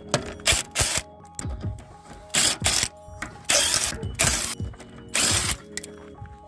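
Wheel nuts being undone with an impact wrench: about six short bursts of rattling, each around half a second long, as each nut spins off.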